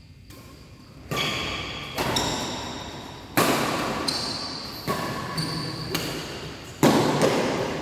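Badminton rackets striking a shuttlecock in a rally: about five sharp hits a second or so apart, each ringing on in the hall's echo, with short high squeaks between them.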